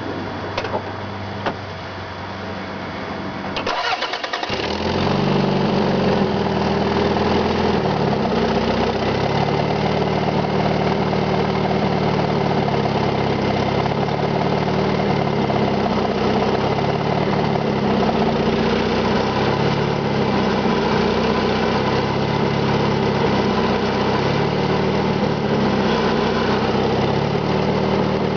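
Toyota MR2 engine cranking briefly about four seconds in after a couple of clicks, catching and settling into a steady idle. The idle carries a knocking sound that comes and goes.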